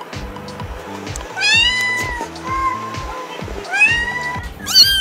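A kitten meowing three times, long rising-then-falling meows, with a quicker higher-pitched meow at the very end, over background music.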